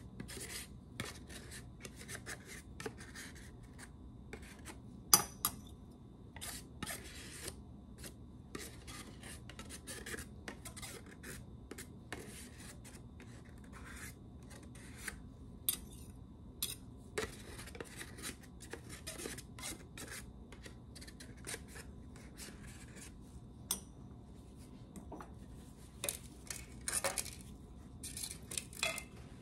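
Metal pharmacy spatula scraping powder and cream off a plastic weighing boat into a ceramic mortar, in many short strokes with scattered light taps, and one sharper click about five seconds in.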